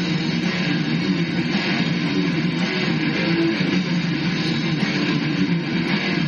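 Heavy metal music, with distorted electric guitar and bass guitar playing continuously.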